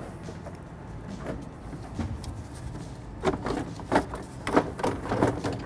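Plastic radiator fan shroud being wiggled and worked loose, giving irregular clattering knocks that come more often in the second half.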